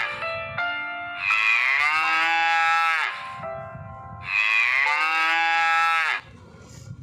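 Cow mooing: the tail of one moo, then two long moos of about two seconds each, each dropping in pitch as it ends.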